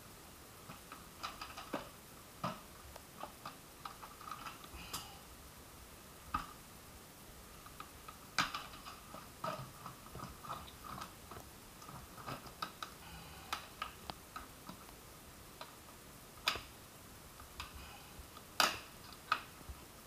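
Irregular plastic clicks and knocks as the parts of a Kärcher WD1 wet and dry vacuum are handled and fitted together: its yellow plastic container and motor head, with the machine not running. The sharpest knocks come about eight seconds in and near the end.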